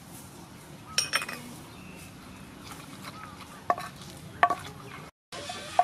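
Wooden pestle knocking and scraping in a wooden mortar as it works a wet garlic and chili paste with fish sauce. There are about four separate sharp knocks, each with a short hollow ring.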